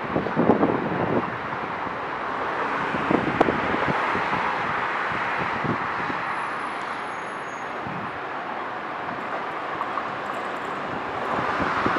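Regional train hauled by a DB class 146 electric locomotive approaching on the tracks: steady rolling noise of the wheels on the rails, growing louder near the end as it draws closer.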